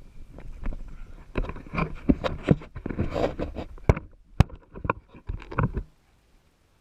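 A rapid, irregular series of knocks, clicks and scraping, which cuts off suddenly near the end.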